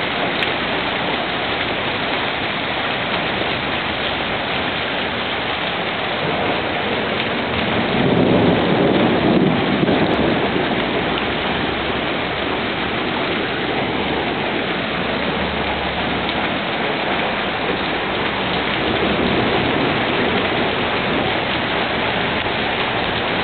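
Heavy rain pouring steadily onto pavement and parked cars. A low rumble of thunder swells about eight seconds in and lasts a few seconds.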